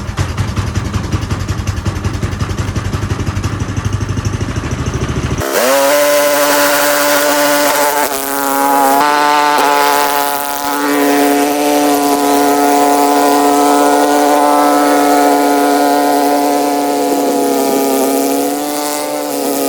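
Single-cylinder snowblower engine running with a fast low pulsing. About five and a half seconds in, the sound jumps abruptly to a high, buzzing whine: the same engine in sped-up footage, its pitch raised several times over. The whine holds steady with small dips and wobbles.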